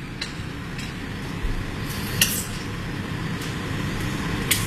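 Kitchen scissors cutting through the shell of a cooked king crab leg: a few short, sharp snips, the clearest about two seconds in and another near the end.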